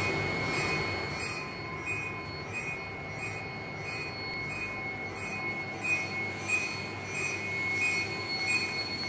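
Electronic rat repeller giving off a steady high-pitched whine with rapid, evenly pulsed high chirps, about three a second.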